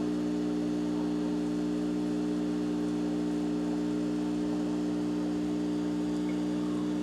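Steady hum made of several constant low tones over a faint even hiss, unchanging throughout.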